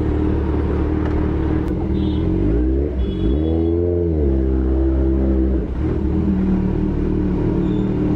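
Kawasaki Ninja 1000's inline-four engine heard from the saddle, running at low revs. About three seconds in it revs up and drops back once as the bike pulls away, then runs steadily at low speed.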